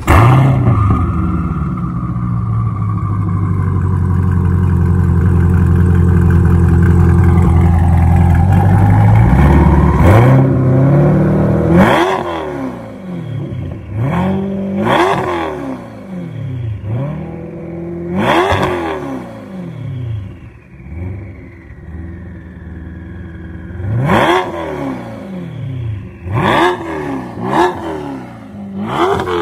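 Twin-turbocharged 6.2 L V8 of a C8 Corvette running at its first fire-up after the turbo kit was installed. It holds a steady idle for about nine seconds, then is revved about seven times, each rev climbing sharply and dropping back to idle.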